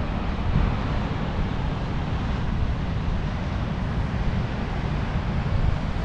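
Wind rumbling on the microphone over a steady rush of ocean surf breaking along the shore.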